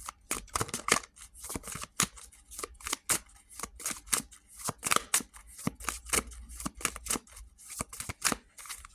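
Oracle cards being shuffled by hand: a quick, irregular run of papery clicks and flicks.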